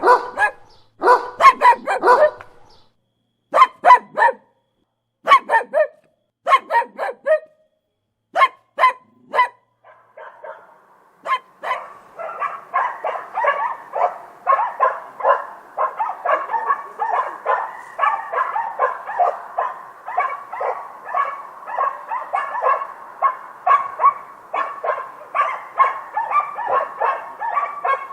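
Close-up dog barking: short barks in pairs and small groups with silent gaps between them, then from about eleven seconds in a rapid, unbroken run of barks, several a second.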